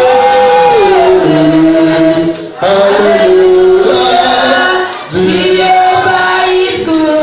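Group of men and women singing a gospel praise chorus together in long held phrases, with short breaths between phrases about two and a half seconds in and again near five seconds.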